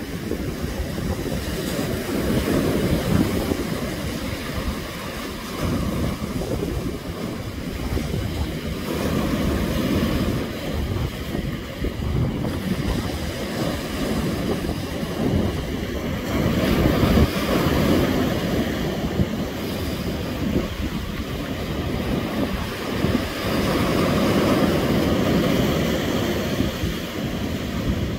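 Rough sea surf breaking over rocks and washing up a sandy beach, a continuous rush that swells and eases every few seconds, with wind buffeting the microphone.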